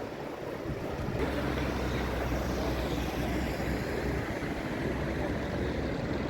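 Street traffic noise. About a second in, a vehicle engine's steady low hum sets in and keeps running.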